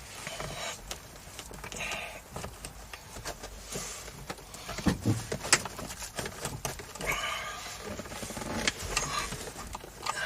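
Irregular clicks, taps and rubbing of a plastic overhead console (map light housing) being handled and pushed against the car's headliner while it is lined up with its screw holes.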